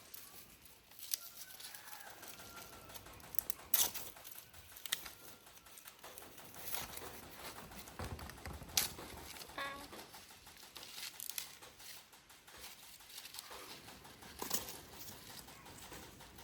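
Rustling and handling noises with scattered sharp clicks and knocks, and a short rapid bird call about ten seconds in.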